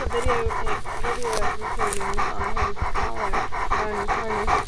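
Search-and-rescue dog panting fast and hard, about five or six breaths a second, right at the harness-mounted microphone: the dog is working hard on a search.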